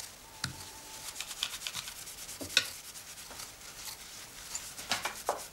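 Cutlery clinking and scraping on plates during a meal: a scatter of small clicks and scrapes, with a sharper clink about two and a half seconds in and a few more near the end.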